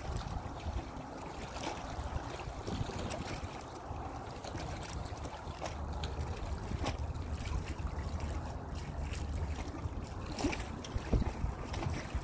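Wind buffeting the microphone as a steady low rush, with small waves lapping and splashing irregularly at the water's edge.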